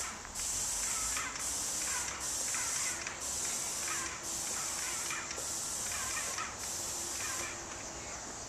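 Outdoor insects buzzing in a pulsing high hiss, about one burst a second, that stops near the end, leaving a steady high trill of crickets.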